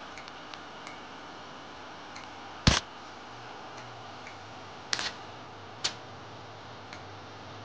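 MIG (wire-feed) welder striking short tack welds on a sheet-steel body panel seam: three brief bursts, the first about a third of the way in and two more close together about two-thirds in, with faint clicks between.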